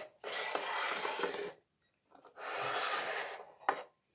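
Disposable aluminium foil tray rustling and scraping as it is handled, in two rasping bursts of about a second each, followed by a short sharp click near the end.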